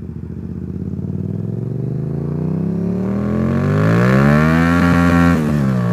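Motorcycle engine pulling away and accelerating, its pitch rising steadily for about four seconds, then dropping sharply near the end as it shifts up a gear.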